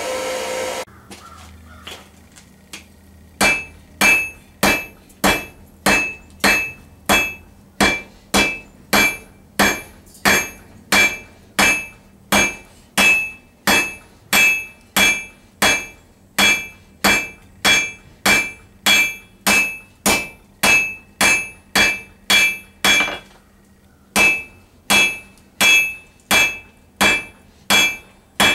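Hand hammer striking glowing round steel stock on an anvil, tapering the bar in steady, evenly spaced blows at nearly two a second, each with a bright ring from the anvil. The blows pause briefly near the end, then start again. A steady rush of air cuts off about a second in, before the hammering starts.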